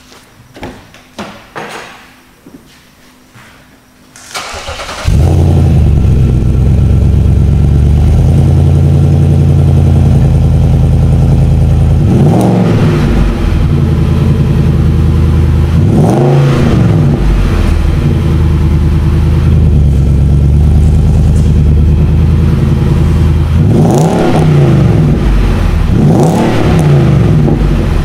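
Nissan Y62 Patrol's VK56 petrol V8 starting about five seconds in, then idling loudly through a custom 441 stainless cat-back exhaust with an X-pipe and a twin-inlet, twin-outlet centre muffler. The engine is blipped several times, each rev rising and falling quickly before it settles back to idle.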